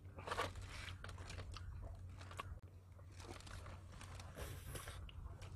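Close-up chewing and biting of raw bigfin reef squid sashimi: a handful of short, soft crunches about a second apart, over a low steady hum.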